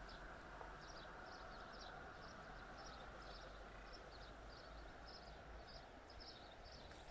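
Faint outdoor quiet: a thin, high chirp repeats about twice a second over a low, steady background hiss.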